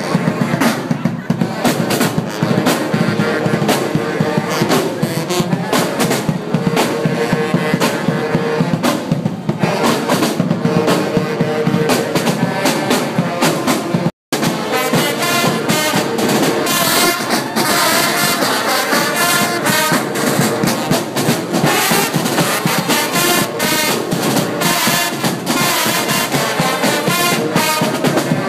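Marching band playing, brass (trumpets and trombones) over a steady beat of drums. The sound cuts out completely for a split second about halfway through, then the band carries on.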